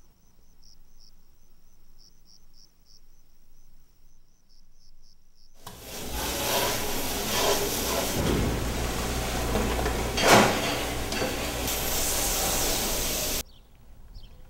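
Crickets chirping in an even, repeating pattern. About five and a half seconds in, this cuts suddenly to a loud hiss of a dish-sink pre-rinse sprayer blasting water into a steel pan, with one sharp knock partway through. The spray stops abruptly shortly before the end.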